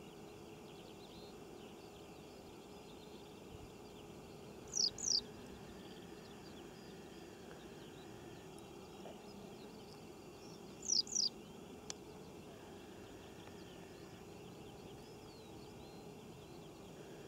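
Open-field ambience, a steady low hiss, broken twice by a bird calling, each call a pair of quick, high, falling notes, about 5 and 11 seconds in.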